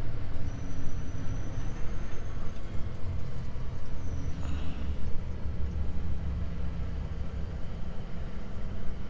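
Volvo FH truck's diesel engine running steadily at low speed as the truck rolls slowly, heard from inside the cab with the window open.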